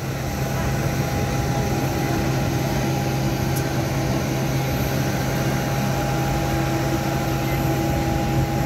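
Steady machine hum from a parked jet airliner and its ground equipment on the apron: a constant rushing noise with a few held tones, unchanging throughout.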